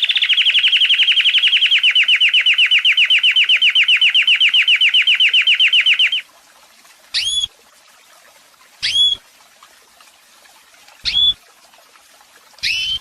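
Domestic canary singing a fast trill of evenly repeated notes, about ten a second, which stops about six seconds in. Four short, separate chirps follow, each sweeping up then falling back, spaced a couple of seconds apart.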